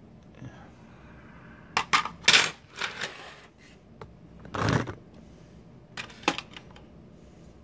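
Lock and parts tray being handled and set down: a series of sharp metallic clinks and clatters. The loudest cluster comes about two seconds in, a longer clatter a little before five seconds, and two light clicks near six seconds.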